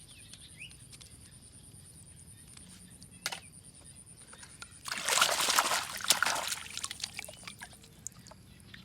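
Water splashing in one short burst of about two seconds, starting about five seconds in, with scattered faint clicks around it.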